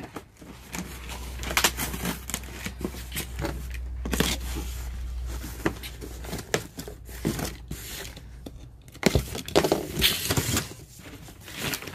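Corrugated cardboard box being torn and wrestled open by hand, with flaps rasping and scraping and cardboard crinkling in irregular rips and knocks. It is loudest about nine to ten seconds in.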